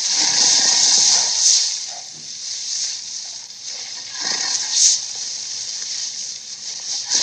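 Dinosaur sound effect for an Acrocanthosaurus: a breathy hiss without a clear pitch, loud for the first second and a half, then quieter, with another brief loud swell about four and a half seconds in.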